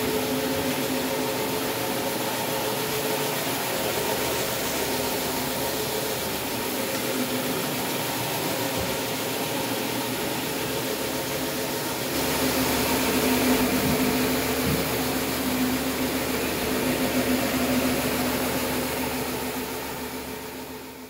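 Counter-rotating brush carpet machine running as it is pushed over frieze carpet: a steady motor hum with the brushes scrubbing through the pile. It gets louder about halfway through, then fades out at the very end.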